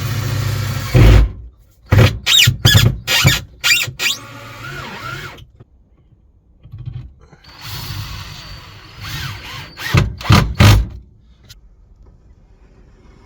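Construction tool work: a power tool runs and stops about a second in, followed by a run of sharp loud knocks and scraping, and a second cluster of knocks near the end.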